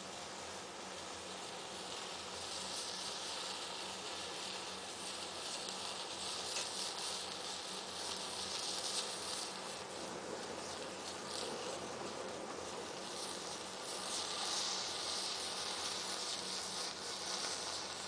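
Rows of standing matchsticks catching fire one after another, a steady hiss and crackle of igniting match heads and flames. It swells a couple of seconds in and again near the end.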